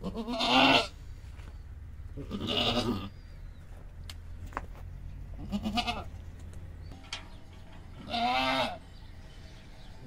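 A goat bleating four times, each call a quavering bleat of under a second, the first one the loudest.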